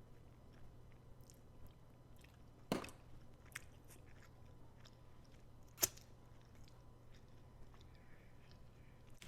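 A person quietly chewing a mouthful of food, with faint mouth noises and two sharp clicks, one just under three seconds in and one about six seconds in.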